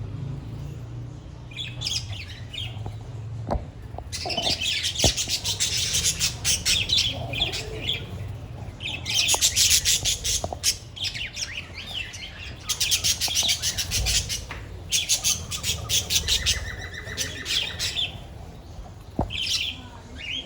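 A flock of budgerigars chattering and squawking, in several spells of fast, high chatter with quieter gaps between them, over a steady low hum.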